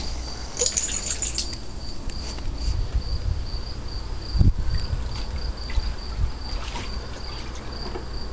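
Water sloshing and dribbling as a Bernese Mountain Dog wades and noses about in a shallow plastic wading pool, with a dull thump about four and a half seconds in. Crickets chirp steadily in the background.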